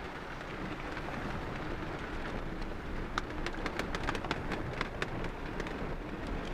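Water swishing and splashing around a vehicle driving slowly through floodwater across a road, heard from inside the cab. A quick run of sharp taps comes about three seconds in and lasts a couple of seconds.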